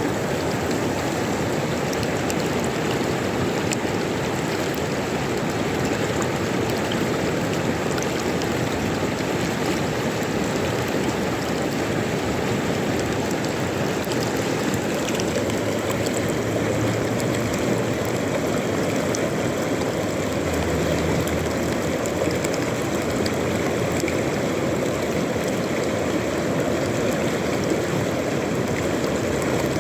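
River water flowing steadily over stones, a continuous rushing and gurgling.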